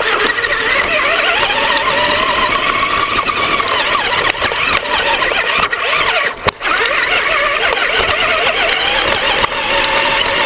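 Electric Traxxas RC car driving, heard from a camera mounted on the car: the motor whine rises and falls with the throttle over a constant rough rushing noise. About six and a half seconds in, the sound drops out for a moment.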